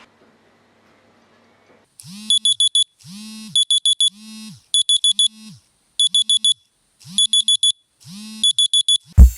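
Electronic alarm beeping in groups of four short, high beeps, about one group every 1.2 s, each group joined by a lower tone that swells and falls away; it starts about two seconds in after silence. A loud thump comes just before the end.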